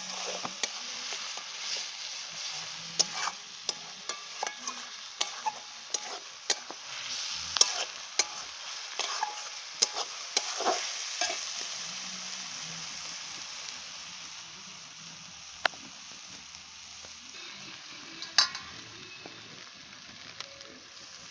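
Masala paste with tomatoes and vegetables frying in hot oil in a metal kadai: a steady sizzle, with a metal spatula stirring and scraping and tapping sharply on the pan. The taps come often in the first half, then thin out to a couple of isolated clicks while the sizzle goes on.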